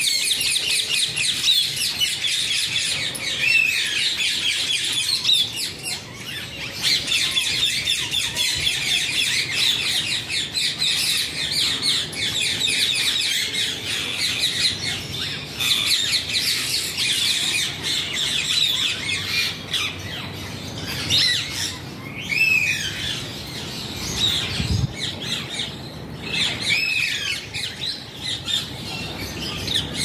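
A flock of Indian ringneck parakeets squawking and chattering, a dense continuous din of short shrill calls that thins out about two-thirds of the way through to scattered single squawks.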